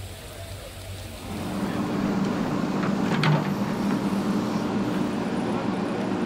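Excavator's diesel engine running steadily at a debris site, coming in louder about a second in. A couple of short sharp knocks sound near the middle.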